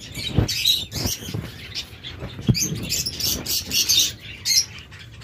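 Caged birds chirping, many short high calls overlapping. A few dull low knocks come in the first half.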